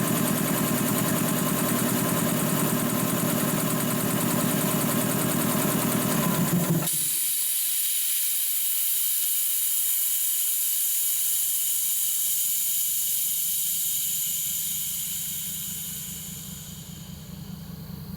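DeVilbiss DevAir 445 two-stage industrial air compressor pumping, then shutting off at cut-out pressure about seven seconds in; the unloader valve then vents a long hiss of air that slowly fades away.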